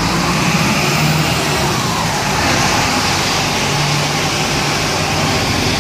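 A city bus engine running close by, swelling twice as buses move past, over a steady hiss of wet-road traffic.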